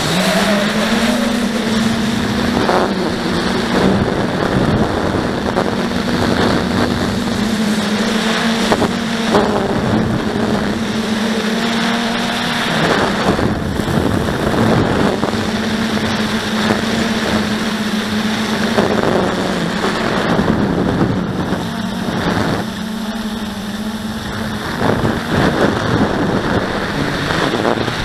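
Blade 350 QX quadcopter's brushless motors and propellers humming steadily in flight, with wind buffeting the onboard microphone. The pitch climbs about a second in, wavers with throttle, and drops back near the end.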